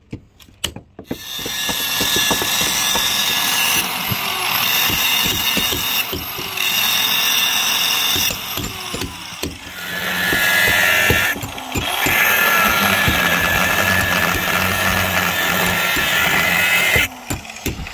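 A handheld power tool running in several long spells with short breaks, cutting off the riveted bolts of the boat's hold fittings. It starts about a second in and stops shortly before the end.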